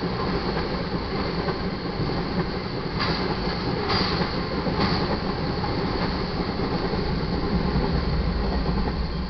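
Loaded crude-oil tank cars rolling past on the rails in a steady rumble, with three sharp clacks between about three and five seconds in. Near the end the rear distributed-power locomotive, a GE Dash 9-44CW diesel, passes and adds a deeper rumble.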